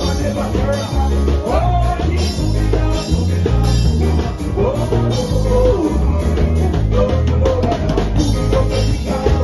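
Live band music: several singers on microphones carry a melody over amplified electric guitars and a heavy bass line.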